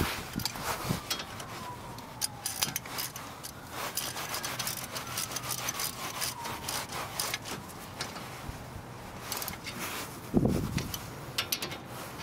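Ratchet wrench clicking in short runs as the brake caliper's 14 mm bolts are run in, with a louder thud near the end.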